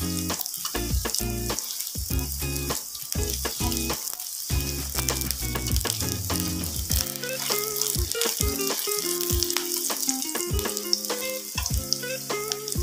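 Minced garlic and ginger sizzling in hot cooking oil in a nonstick frying pan, stirred with a wooden spatula. The garlic is being browned to make it fragrant.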